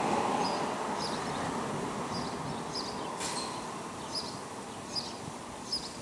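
Outdoor background noise: a steady low rumble that slowly fades, with short high chirps repeating about every half second and a brief hiss about three seconds in.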